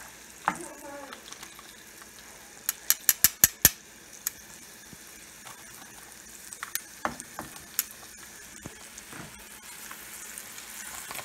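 Floured raccoon pieces sizzling in hot oil in a frying pan, with metal tongs clicking against the pan as the pieces are turned. A quick run of about six sharp clicks comes about three seconds in, with scattered single clicks later.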